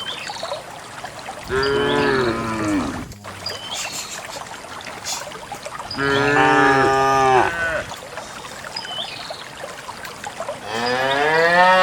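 Cows mooing: three long moos a few seconds apart, the last one rising in pitch.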